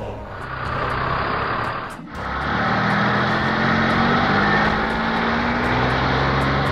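Tow truck engine sound effect: a rushing noise for about two seconds, then the engine running steadily, its pitch slowly rising as the truck pulls away with its load.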